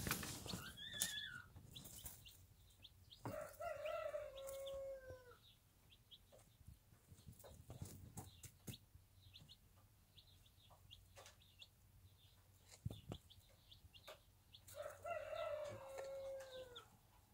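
A rooster crowing twice, about eleven seconds apart, each crow about two seconds long and falling in pitch at its end. In between come a chick's high peep, small ticks of pecking in wood shavings and feed, and a brief rustle at the very start.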